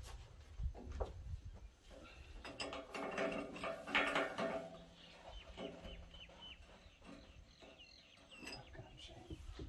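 Metal parts clanking and rattling as a roll-bar piece is worked into place, loudest about four seconds in, then a run of short high chirps at about two a second.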